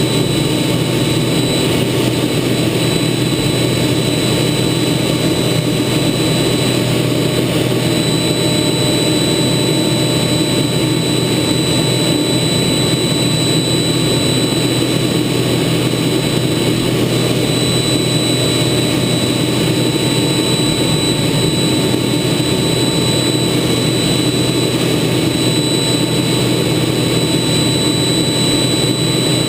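Steady cockpit noise of a TA-4J Skyhawk in flight: its Pratt & Whitney J52 turbojet and the rush of air over the canopy, heard from inside the rear cockpit, with steady high-pitched whines and a low drone that do not change.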